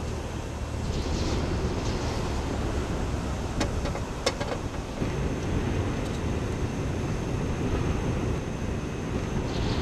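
Strong blizzard wind, 50-60 mph gusts, blowing over the microphone as a steady low rumble, with two short clicks about three and a half and four seconds in.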